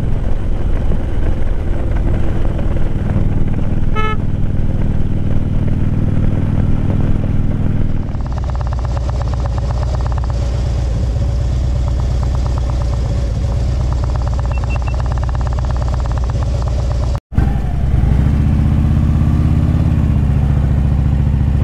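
Harley-Davidson Street Glide's V-twin engine running under way with wind noise, then, after a cut about 8 seconds in, idling with a steady pulsing beat while the bike stands still. A short dropout near the end marks another cut, after which the idle carries on.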